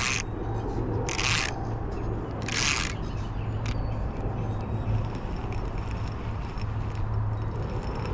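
Line rasping off the spool of a Shimano Scorpion BFS XG baitcasting reel in three short pulls in the first three seconds as a bad backlash is picked out, over a low steady rumble.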